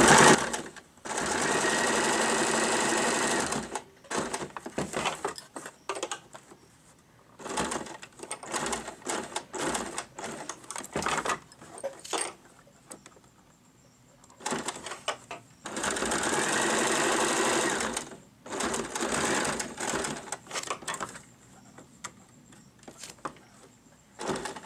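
Electric sewing machine stitching a buttonhole with its buttonhole foot: two steady runs of a couple of seconds each, about a second in and about two-thirds of the way through, with many short stop-start bursts of running in between.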